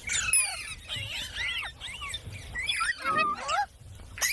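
Pet green parrot calling: a busy run of short whistles and squeals that glide up and down in pitch.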